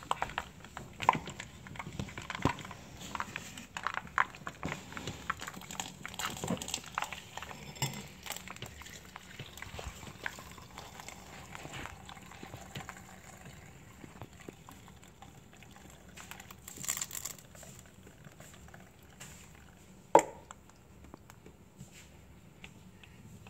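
A steel spoon scrapes and clinks against a stainless steel pan while melted ghee is poured through a metal mesh strainer. Scattered taps and scrapes come thickly at first and thin out later, with one sharp clink near the end.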